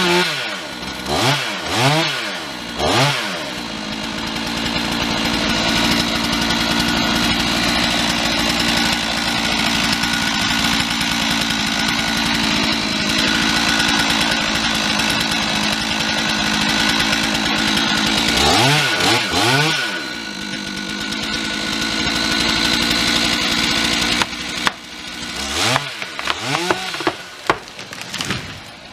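Gas chainsaw revving up and down a few times, then held at full throttle through a long steady cut. About two thirds of the way in it revs again and settles into another steady cut, then ends in a series of short throttle blips with dips toward idle.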